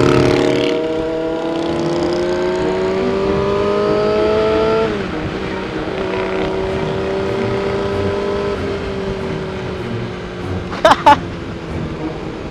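Yamaha R6 sport bike's inline-four engine pulling under throttle, its pitch rising steadily for about five seconds, then dropping abruptly as the throttle closes, and running on at a steady, slowly falling pitch. Two short sharp sounds about eleven seconds in.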